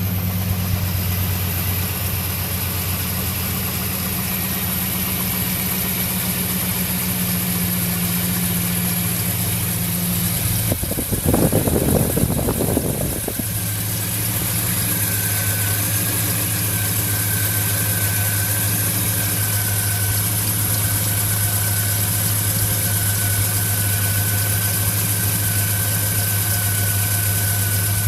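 Chevrolet Trailblazer SS V8 idling with a steady low hum. About eleven seconds in there is a couple of seconds of louder, rougher sound, after which a thin steady high-pitched whine joins the idle.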